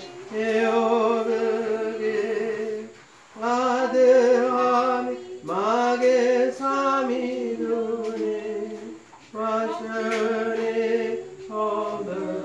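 Unaccompanied funeral hymn sung by a small group of voices, a slow melody in long held phrases with a slight vibrato and short breaks for breath between phrases.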